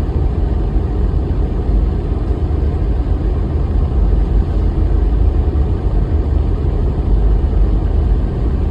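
Car driving along, heard from inside: steady low engine and tyre road noise with no changes.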